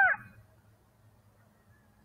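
The end of a long, steady howl-like coyote call, dropping in pitch and cutting off just after the start, followed by near silence with a faint low hum.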